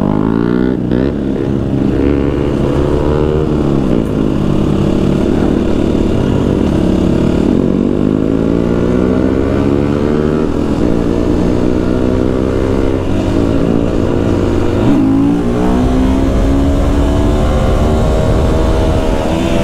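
Husqvarna FE 350 single-cylinder four-stroke enduro engine under way, repeatedly rising in pitch and dropping back several times as it changes gear.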